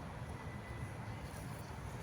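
Steady low outdoor rumble with a few faint, high, short bird chirps and a faint thin whistle-like tone in the first second.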